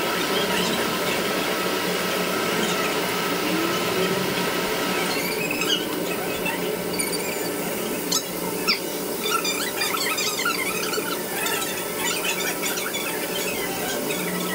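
A steady high-pitched whine and hum from the running machine tool. From about five seconds in, light metallic clicks and scrapes come from a hand wrench working the bolts of a collet chuck on the lathe spindle.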